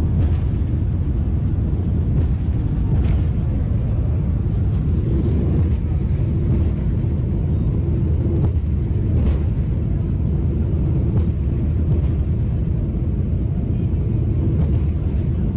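Steady low rumble of a jet airliner in flight, its engines and airflow heard from inside the passenger cabin, with a few faint clicks.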